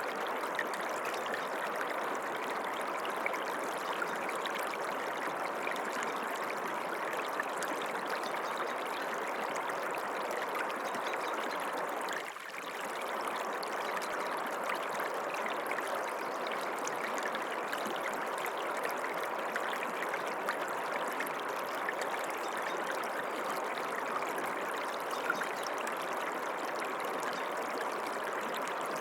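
Water of a stream running steadily, with a brief dip in level about twelve seconds in.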